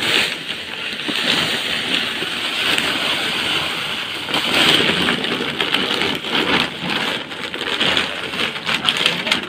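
Potting soil mixed with cocopeat pouring out of a plastic sack into a plastic tub: a steady rushing hiss. Near the end the sack's plastic crinkles and crackles as it is shaken out.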